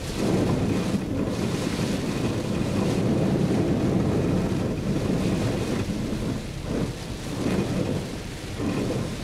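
Heavy rain and storm wind on a car driving through a downpour, heard from inside the cabin as a dense, low rushing noise that swells and dips.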